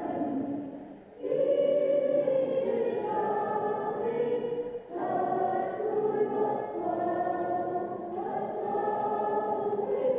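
A congregation of worshippers singing together as a choir in long held phrases, with a short pause about a second in and another near the middle.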